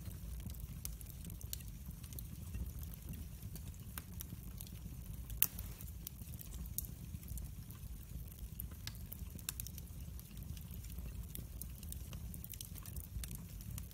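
Split wood logs burning in a fireplace, crackling with scattered sharp pops over a low steady rumble; one loud pop stands out about five and a half seconds in.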